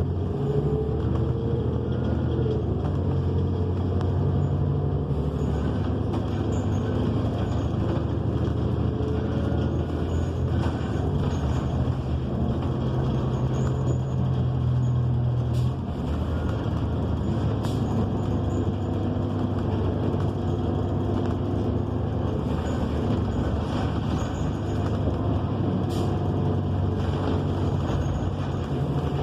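Inside a New Flyer XN40 natural-gas bus on the move: the Cummins Westport ISL G engine and Allison B400R transmission running with a steady low drone, the whine rising in the first couple of seconds as it picks up speed. A few sharp clicks and rattles from the cabin, the clearest about halfway through.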